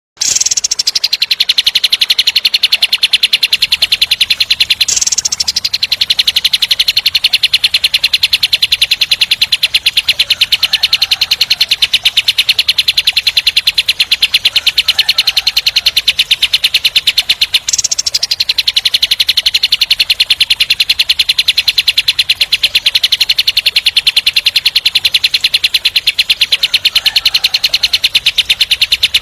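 Kapas tembak bird singing its 'tembak' song: a long, fast, tightly packed rattling trill of even high-pitched pulses. The trill pauses briefly and restarts about five seconds in and again past the halfway point.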